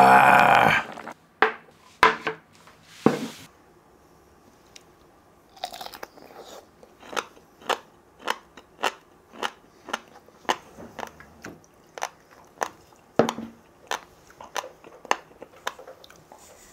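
A person chewing and crunching a mouthful of sandfish from the stew, with sharp crunches about twice a second.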